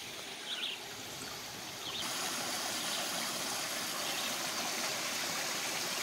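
Forest stream trickling and splashing over rocks in a small cascade, a steady rush that grows louder about two seconds in and then holds.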